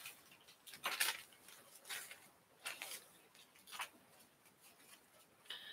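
Hands rummaging through fly-tying materials: a series of quiet, short rustles and clicks, roughly one a second.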